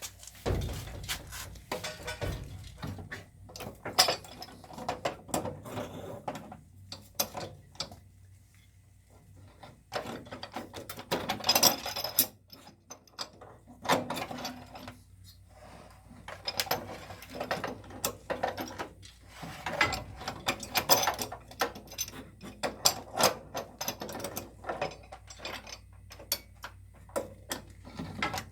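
A hand tool ratcheting and clicking on a water-heater supply pipe, in irregular bursts with short pauses.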